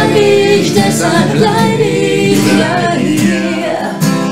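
Voices singing a German pop song live over strummed acoustic guitar, the sung pitch gliding between held notes.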